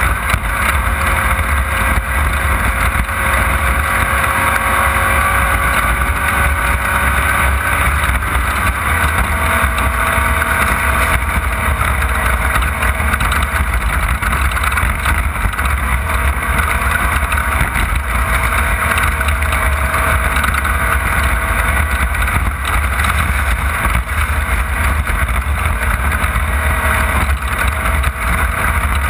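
Off-road race car running at speed, heard from on board: a steady engine note that drifts up and down with the revs over a constant low rumble.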